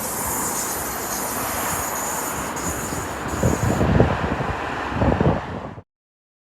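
Diesel passenger train passing, a steady rumble and hiss of wheels on rail with a faint high whistle, then a few heavy low thumps in the last couple of seconds before the sound cuts off abruptly.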